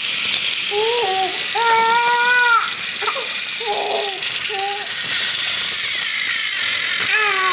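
Battery-powered toy train engines running on plastic track with a steady, whirring rattle. Over it a child makes short, wordless sing-song vocal sounds several times.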